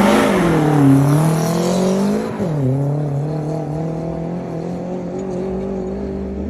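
Rally car engine revving hard as it pulls away, its pitch rising and falling. About two and a half seconds in, the pitch drops sharply, as at a gear change, and then the engine holds a steady note.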